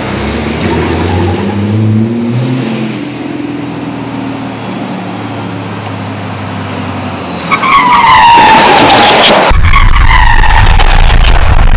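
1100 bhp racing semi truck's engine running hard through a drift. From about two-thirds in, loud tyre squeal and skidding take over as the truck slides sideways, with a squealing tone that falls in pitch.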